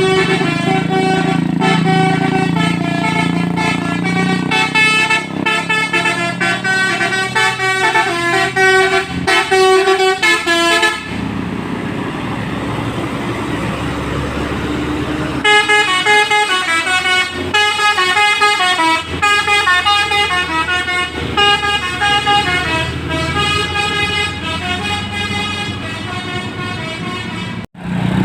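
Tour bus Basuri multi-tone (telolet) horn playing a quick tune of stepped notes. It stops about eleven seconds in, leaving a few seconds of steady noise, then plays another tune. It cuts off suddenly near the end.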